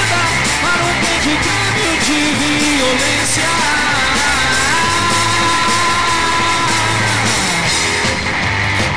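Rock band playing a fast, heavy song on a demo recording taken from cassette tape: electric guitar, electric bass and drums, with a high note held for about two seconds in the middle.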